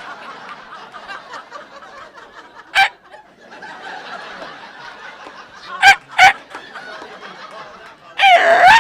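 Audience laughing, with a man's voice making sharp dog yelps, one about three seconds in and two close together about six seconds in. A longer wavering whoop near the end mimics a car alarm.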